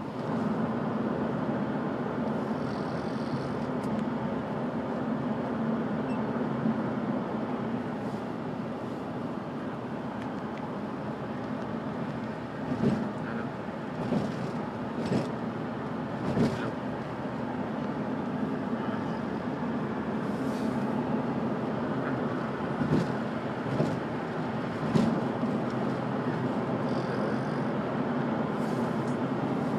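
Steady motor vehicle running noise, a continuous low hum, with a few short louder sounds in the middle.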